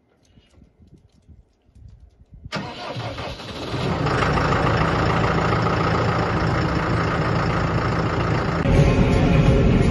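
New Holland loader tractor's diesel engine starting about two and a half seconds in, after a few faint clicks. Its sound builds over a second or so and then runs steadily.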